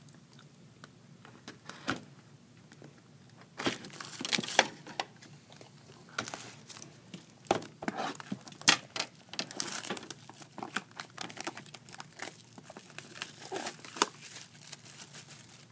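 Plastic wrapping on a sealed trading card box being torn and crinkled open: irregular crackling with scattered sharp snaps. It starts after a few quiet seconds.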